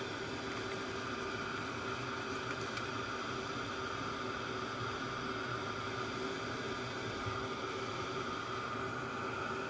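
Embossing heat tool running steadily: its fan and heating element blow hot air with a constant hiss and a steady hum, melting heat-and-stick embossing powder on stamped card.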